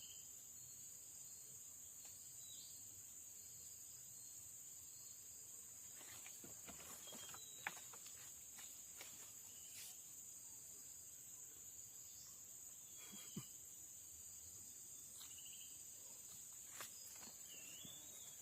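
Faint, steady high-pitched insect chorus with a few scattered faint bird chirps and small clicks.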